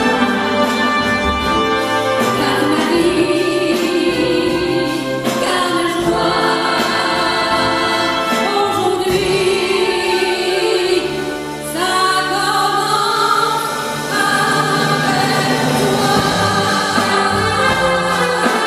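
A woman singing a French chanson with a military wind band accompanying her live, the music dipping briefly past the middle and then swelling again.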